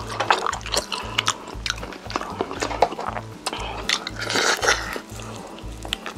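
Crunching bites and chewing of crispy roast chicken, with sharp crackles and a longer crunch about four seconds in, over background music with a steady bass beat.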